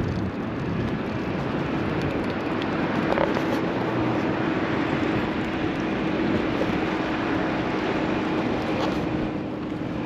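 Steady road-traffic noise on a wide multi-lane road, with a faint steady hum coming in about three seconds in.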